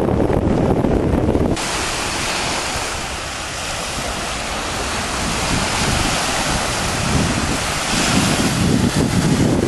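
Wind rumbling on the microphone, which drops away suddenly about a second and a half in, leaving the steady hiss of small waves breaking on a sandy shore; the wind rumble comes back near the end.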